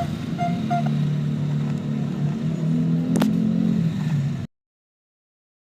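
An engine running steadily with a low hum, with a single sharp click about three seconds in; the sound cuts off abruptly about four and a half seconds in.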